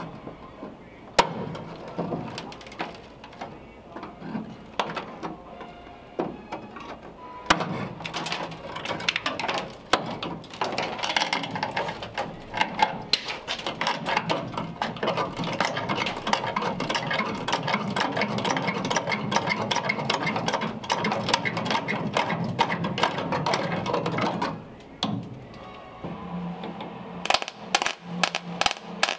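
Metal bodywork on a car's door pillar: a long stretch of dense crackling and clicking through the middle, then several short crackling bursts near the end from an Eastwood 175 MIG welder tacking a sheet-steel patch panel into place.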